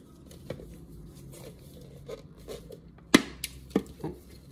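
Plastic Great Ball case being fitted together by hand: light clicks and handling, then a sharp snap about three seconds in and another about half a second later.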